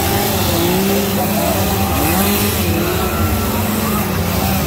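Chainsaw engine running loud and steady close by, its pitch swelling and dropping as it is revved.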